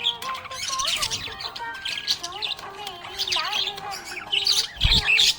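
Budgerigar chirping and warbling in a fast, continuous chatter of high chirps and gliding notes. A short low thump comes near the end.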